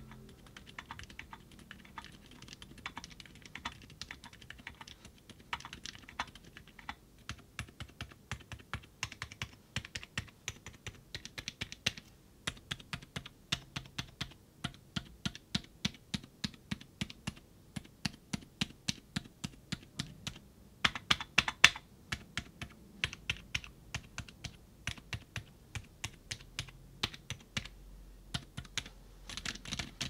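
Typing on a MonsGeek M1 aluminium-cased mechanical keyboard fitted with KTT Claret Smooth linear switches and transparent PBT keycaps: a steady stream of quick, soft keystrokes, with a short burst of louder strokes a little past the middle.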